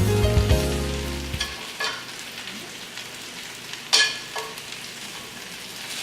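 Breaded chicken pieces frying in hot olive oil in a pan, a steady sizzle, with a few sharp clicks about two and four seconds in. Background music fades out in the first second or so.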